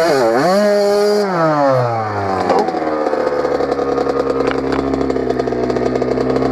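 Two-stroke engine of a 2000 Kawasaki KX80 dirt bike revving up and down as the rear wheel loses its grip in snow on a hill climb. The revs fall away over the first three seconds, then the engine settles to a steady idle as the bike lies tipped over.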